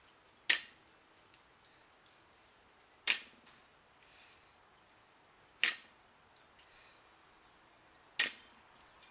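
A barbell loaded with bumper plates clinking sharply four times, about every two and a half seconds, once with each deadlift rep as the plates shift on the bar.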